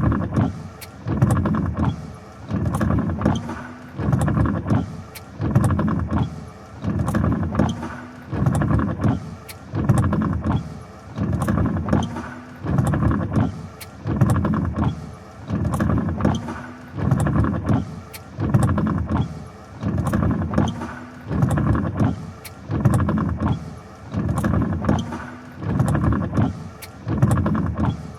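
A vehicle's mechanism running in a steady rhythm, surging about once a second with light clicks.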